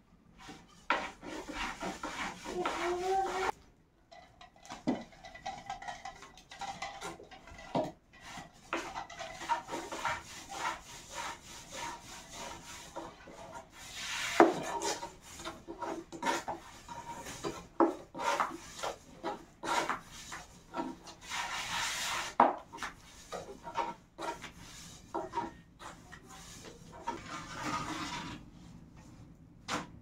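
Manual work: irregular scraping and rubbing strokes, a few longer rasping strokes, and scattered sharp knocks.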